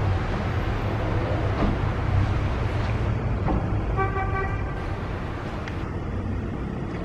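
Steady low rumble of motor traffic in the street, with one short car-horn toot about four seconds in.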